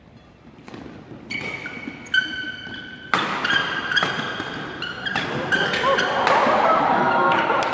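Badminton rally: a run of sharp racket smacks on the shuttlecock, with high squeaks of court shoes on the mat between them. Spectators' voices rise in excitement over the last couple of seconds.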